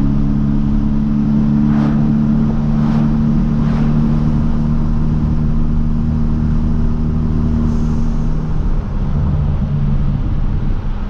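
Hyundai Veloster Turbo's 1.6-litre turbocharged four-cylinder with a catless downpipe, cruising at a steady engine speed with a constant exhaust drone. The pitch shifts near the end as the engine speed changes. A few faint clicks sound in the first few seconds.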